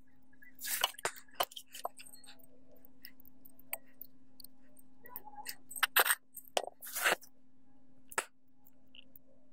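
Irregular clinks, clicks and scrapes of metal parts being handled as a ceiling fan is taken apart and its copper-wound stator is lifted out of the housing, with a faint steady hum underneath.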